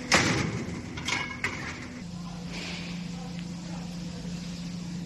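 Steel cabinet parts clanking as a steel frame rail is handled against the cabinet: a loud metal bang that rings briefly, then a second rattling metallic clank with a ring about a second later and a short click. A steady hum runs underneath and drops in pitch about two seconds in.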